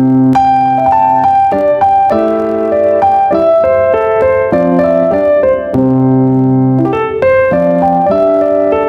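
Background piano music: a gentle melody of single notes over held lower chords.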